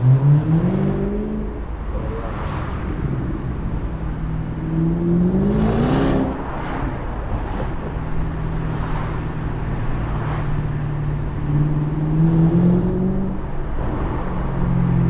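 BMW 650i's naturally aspirated 4.8-litre V8 accelerating through the gears: the engine note climbs just after the start, climbs again and drops at a gear change about six seconds in, then runs steadily with a short rise near the end.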